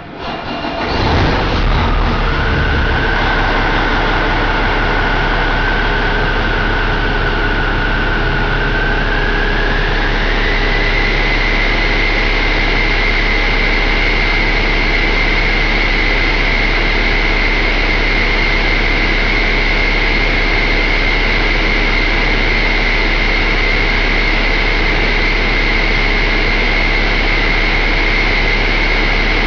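Cummins ISX15 inline-six heavy-duty diesel engine starting on a test stand, catching within the first second or so and then running steadily. A high whine over the engine steps up in pitch about ten seconds in, then holds.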